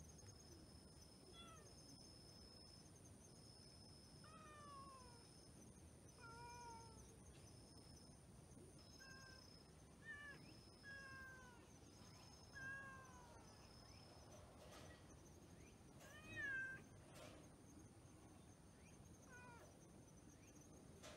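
A cat meowing faintly: a string of short meows that fall in pitch, about nine in all, the loudest about two-thirds of the way through. A high, evenly pulsing insect chirp runs under the first half and stops.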